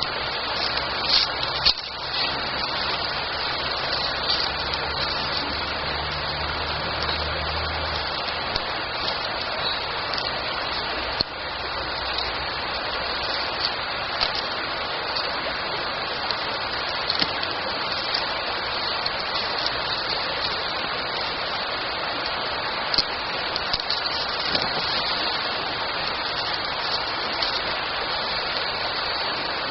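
Wood campfire burning, a steady hiss with scattered small crackles and pops. A faint low hum runs under it for the first eight seconds or so.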